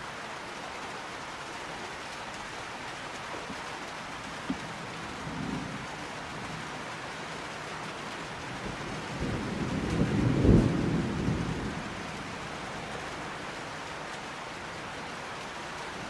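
Steady rain falling, with a faint rumble of thunder about five seconds in, then a louder roll of thunder past the middle that swells and fades over about three seconds.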